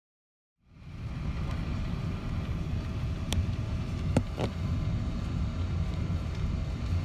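Boeing 777-200ER cabin noise while taxiing: a steady low rumble of the engines and the rolling aircraft heard from inside, starting suddenly about half a second in. A few sharp clicks come a little past the middle.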